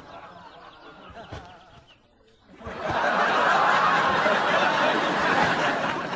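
Sitcom studio audience bursting into loud laughter about two and a half seconds in, many voices together, after a quieter stretch; it begins to die down near the end.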